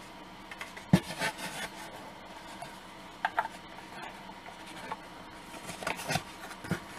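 Model-kit parts being handled and worked with a small brush, giving rubbing and scraping with scattered knocks and clicks. The loudest knock comes about a second in, a quick pair just after three seconds, and a cluster near six seconds.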